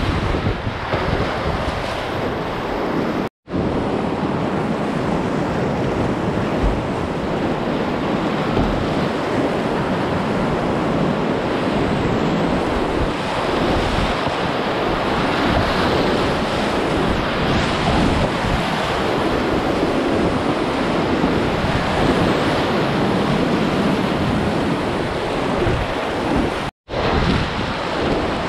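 Whitewater rapids rushing loudly around a kayak, with water splashing close by and wind buffeting the microphone. The sound cuts out abruptly for an instant twice, about three seconds in and near the end.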